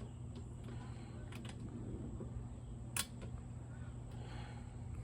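A single sharp click about three seconds in, over a steady low hum and a few faint ticks.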